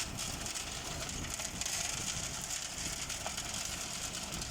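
Tractor engine running steadily, driving a PTO-mounted transit concrete mixer, with an even gritty churning noise over the low engine rumble.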